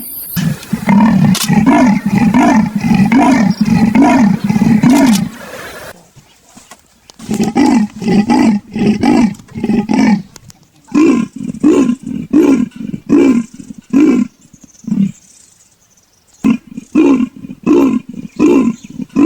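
Leopard giving its sawing call: bouts of rhythmic, rasping grunts, several a second, broken by short pauses of one to two seconds.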